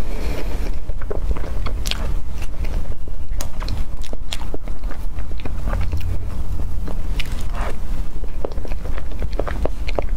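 Close-miked eating of a taro cream mille crepe cake: soft wet chewing and mouth clicks, with scattered sharp clicks and smacks over a steady low rumble.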